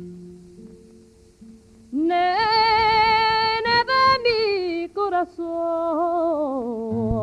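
Soundtrack song: a few fading plucked-string notes, then a singer's voice comes in about two seconds in, holding long wavering notes without words and sliding down to a lower held note near the end.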